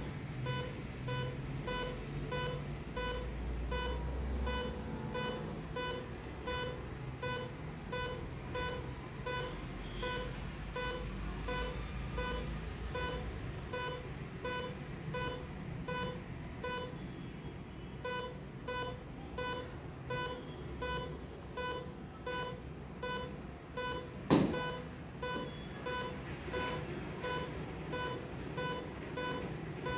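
Patient monitor's pulse-oximeter beep, one short tone with each heartbeat, about one and a half beeps a second at a pulse of 84–88. A low hum in the first few seconds as the NIBP cuff pump inflates the cuff, and a single knock late on.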